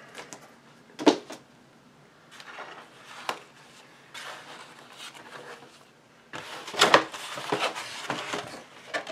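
Bagged comic books and a cardboard shipping box being handled: a sharp knock about a second in, then rustling and scraping of plastic sleeves and cardboard, loudest over the last three seconds.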